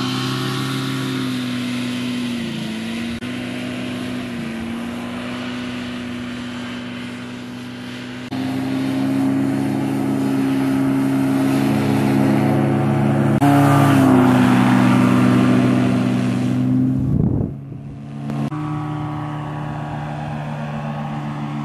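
Paratrike engine and propeller droning as the trike flies low past, the engine note rising and growing louder about eight seconds in and again a few seconds later. Near the end the note falls sharply and dips for about a second before picking back up.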